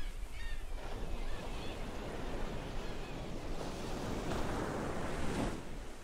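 Ocean surf washing on a beach, with a few short gull calls in the first second or so. About three and a half seconds in, a wave's rush swells louder, then falls away shortly before the end.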